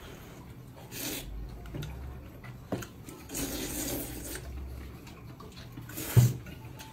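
Noodles being slurped off chopsticks from a bowl: a short slurp about a second in and a longer one around three and a half seconds in. A sharp low thump near the end is the loudest sound.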